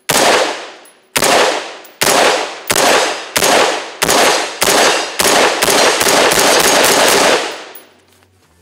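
Perun X16 carbine with a 3D-printed lower receiver firing a string of shots. They come about a second apart, then quicken to several a second before stopping about seven and a half seconds in. The rifle cycles shot after shot with the printed lower holding up.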